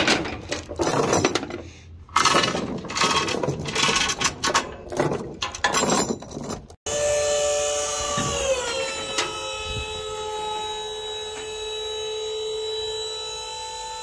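Tie-down chains and binders rattling and clanking against the steel trailer frame as the tracked skid steer is unchained. After an abrupt cut a steady machine drone with several whining tones runs on; it drops in pitch a little after the middle, then holds.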